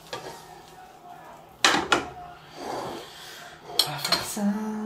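Kitchenware clinking as fried eggs are served: a frying pan, ceramic plate and metal spoon knocking on the plate and counter, two sharp clinks a little over a second and a half in and two more around four seconds. A brief low hum follows near the end.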